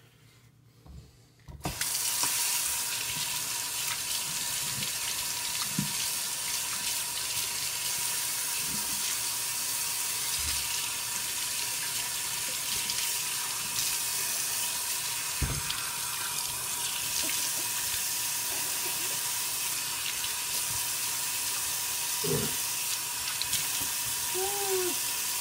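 Bathroom sink faucet turned on about two seconds in, then water running steadily into the basin as a baby's face and hands are washed in the stream.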